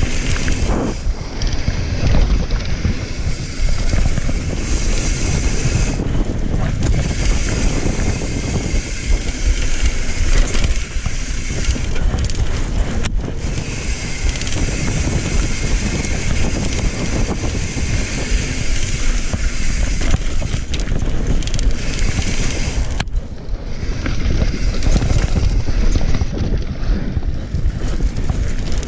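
Mountain bike riding down dirt singletrack: wind buffeting the microphone over the rumble of knobby tyres on dirt, with the bike rattling and a few sharp knocks from bumps.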